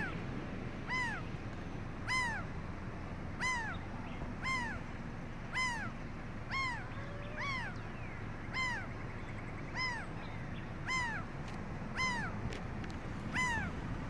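Laughing gull giving a steady series of about a dozen short calls, roughly one a second, each note rising and then falling in pitch.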